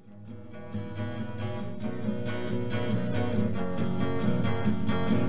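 Background music: a strummed acoustic guitar that fades in over the first couple of seconds.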